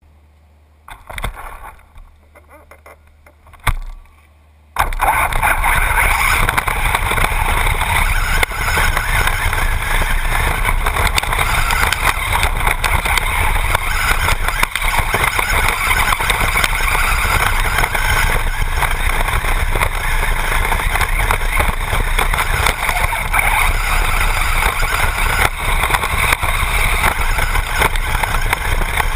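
Traxxas Bandit RC buggy with a brushless motor driving over dirt, heard from on board: a loud, steady rush of motor and tyres on the ground that starts suddenly about five seconds in. Before it there are a few seconds of quiet with two short knocks.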